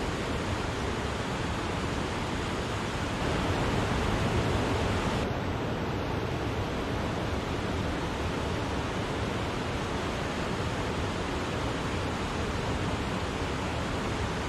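Wachirathan waterfall rushing: a steady, dense sound of falling water, swelling slightly a few seconds in and a little duller after.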